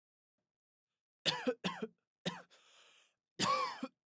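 A person coughing, starting about a second in: two quick coughs, a third, a short breath in, then a longer cough near the end. It is exam-room background noise.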